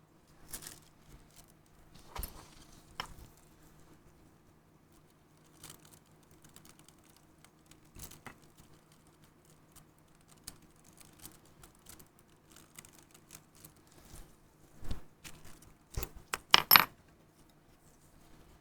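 Small metal watchmaker's tools clicking and clinking against a pocket watch movement as the hands are levered off, scattered light ticks with a duller knock and then a sharp cluster of ringing metallic clinks near the end, the loudest.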